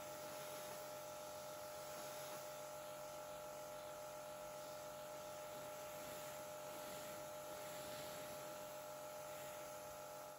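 Kärcher K5 Compact pressure washer running, heard faintly: a steady motor hum with an even hiss from the spray jet on paving slabs.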